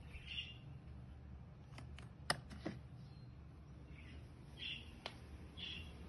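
Several sharp plastic clicks and knocks, the loudest about two seconds in and another near the end, as the robot vacuum's combined dust box and water tank is handled. Short faint chirps recur over a low steady hum.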